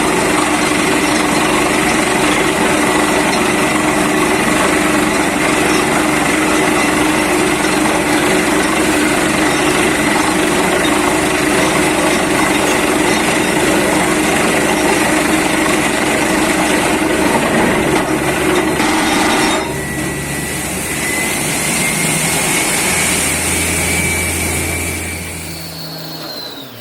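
Borewell drilling rig running loudly and steadily. About twenty seconds in the noise drops sharply, leaving a quieter machine with a slowly rising whine.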